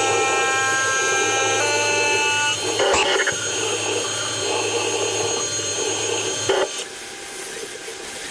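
CNC milling machine spindle running a chamfer mill along the top edge of an aluminium block: a steady machine whine with several held tones that shift in pitch about two seconds in. The cutting sound stops and the level drops about a second and a half before the end, as the tool lifts clear of the part.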